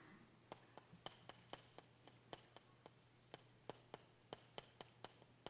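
Chalk writing on a chalkboard: a quick, irregular series of faint clicks and taps, about four a second, as the chalk strikes the board.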